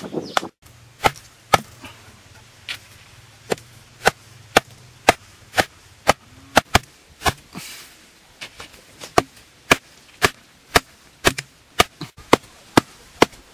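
A machete-like blade chopping wooden stakes: a long run of sharp, regular chops, roughly two a second, with a brief lull about halfway through.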